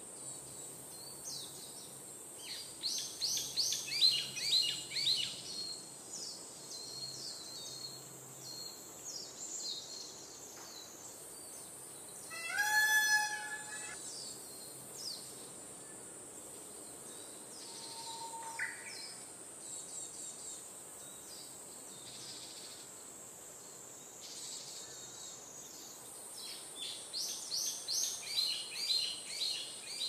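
Wild birdsong: bursts of rapid high chirping trills, loudest about four seconds in and again near the end, over a steady high hiss. One louder, short pitched bird call comes about thirteen seconds in.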